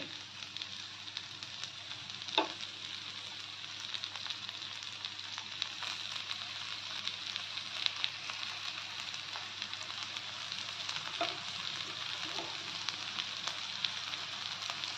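Spice-coated okra frying in mustard oil on a hot tawa over low heat: a steady sizzle with scattered small crackles and pops.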